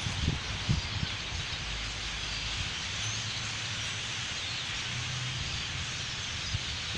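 A huge flock of birds of one kind calling all at once, a dense, steady chatter.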